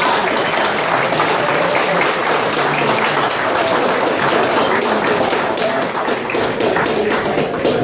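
Crowd applauding: many hands clapping in a steady patter.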